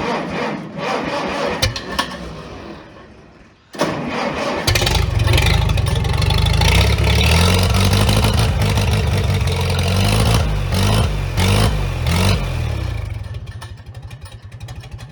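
Tractor engine cranking, catching about four seconds in, then running and revved up and down a few times before easing off near the end. The turbo whistle fitted to it adds no audible difference.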